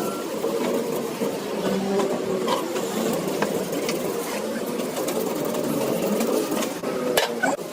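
A machine running with a steady, fast mechanical clatter, and scattered sharp clicks and knocks on top, several close together near the end.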